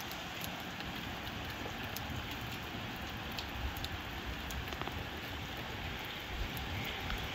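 Steady rain falling, with scattered sharp drop ticks and a low rumble of gusty wind.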